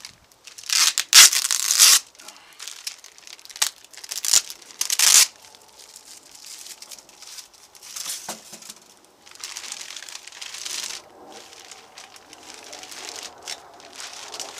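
Thin clear plastic bag crinkling and rustling as it is pulled and peeled off a boxed PA speaker, in loud bursts over the first five seconds, then quieter, intermittent rustling.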